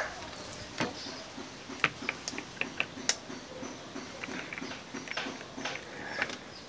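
Scattered light clicks and taps, about ten spread unevenly, from a DJI Ronin SC handheld gimbal being handled and turned over in the hands.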